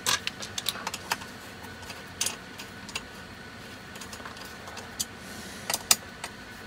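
Scattered light metallic clicks and taps from handling a CNC 3018 Pro's frame: linear bearing blocks being moved on their steel guide rods against the aluminium bed. Several clicks come in the first second, one a couple of seconds later and two close together near the end.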